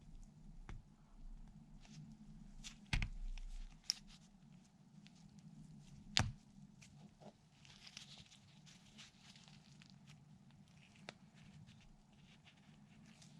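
Faint scattered clicks and taps of small metal parts as a stuck, gummed-up 5.3 V8 hydraulic lifter is taken apart by hand, with sharper clicks about three and six seconds in, over a faint steady low hum.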